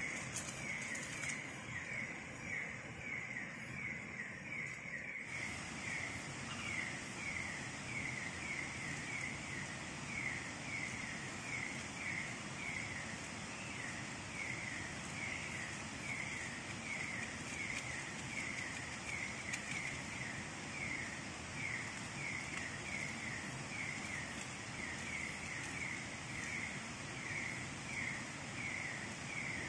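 Night-time jungle ambience: a small animal repeats a short call that falls in pitch, over and over at an even pace, above a steady background hiss.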